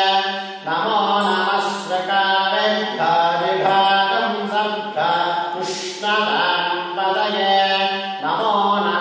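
A male voice chanting Sanskrit mantras in phrases on a near-steady reciting pitch, with short breaks every two to three seconds.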